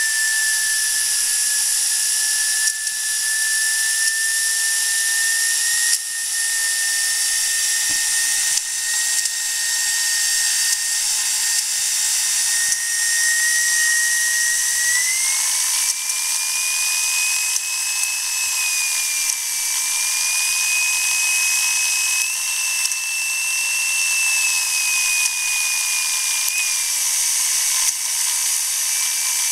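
Karsten Gintschel "Tornado" model steam turbine running at speed: a steady high-pitched whine over a constant hiss of steam. About halfway through, the whine rises and then holds at the higher pitch.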